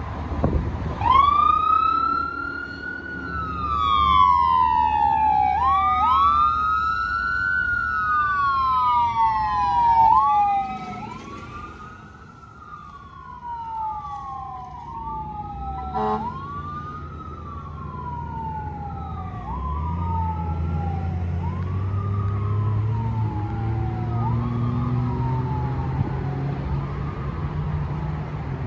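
Fire engine siren wailing, each cycle rising quickly and falling slowly; the sweeps speed up and grow fainter as the engine drives away. A low rumble builds in the second half, and there is a short sharp sound about halfway through.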